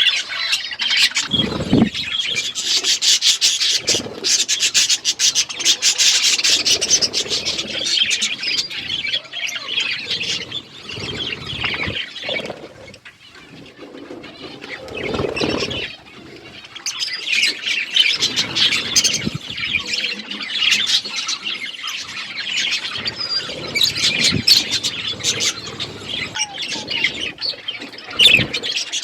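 A group of budgerigars chattering and chirping in dense, rapid warbles, easing off to a lull about halfway through, then picking up again. A few low thumps are heard among the chatter.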